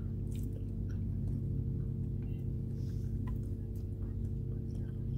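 Steady low hum inside a parked car's cabin, with faint scattered clicks and mouth sounds of someone chewing food eaten with a plastic fork from a cardboard takeout box.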